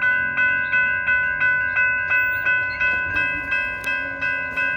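Railroad crossing warning bell ringing at a steady pace of about three strikes a second, each strike the same ringing tone, warning of an approaching trolley.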